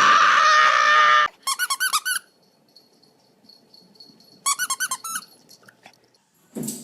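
A squeaky dog toy being squeezed: a loud, harsh squeal lasting about a second, then two quick runs of short, high squeaks, one about a second and a half in and one near five seconds.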